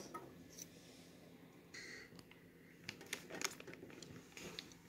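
Faint handling noises of a plastic toy pirate ship as a plastic plank is slid into its slot: a brief scrape about two seconds in, then a few light clicks, several close together about three seconds in.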